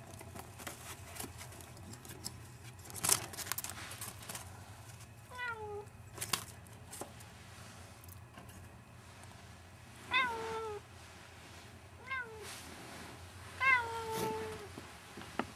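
A cat meowing four times, short meows that each fall slightly in pitch, the last the longest. Before the first meow there are a few sharp clicks and rustles.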